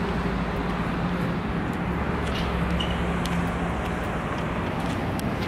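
Steady road-traffic noise from cars running along a bridge, with a low engine hum and no single event standing out.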